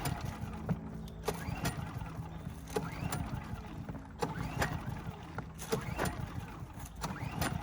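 Harbor Freight Predator 3500 generator's engine being cranked over and over without catching: a failed start, with irregular knocks over a steady low hum.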